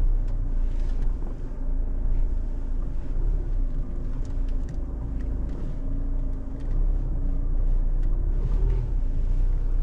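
Isuzu D-Max's 3.0-litre four-cylinder turbo-diesel pulling at low revs in low-range first gear as the ute crawls over rough terrain: a steady low rumble with a few light knocks.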